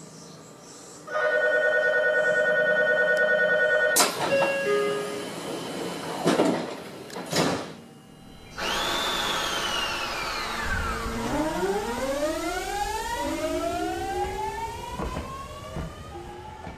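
Train departure at a station: a steady departure signal rings for about three seconds, a short chime follows, then two sharp thumps. From about halfway in, an electric train's inverter motor whine falls, then climbs in several rising tones as the train pulls away.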